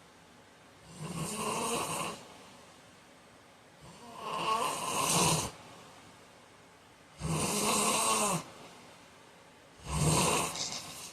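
A heavy-set man snoring in his sleep: four loud snores, each a second or so long, about three seconds apart.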